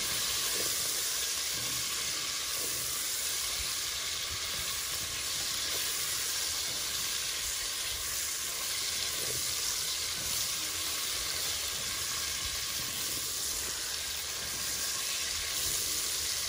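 Salted lamb and caramelized shallots sizzling steadily as they fry in fat in a pot, stirred now and then with a spatula.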